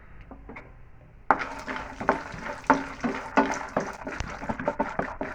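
Peanuts frying in hot oil in a pan: a second or so in, a sudden start of busy crackling and irregular sharp pops as they sizzle.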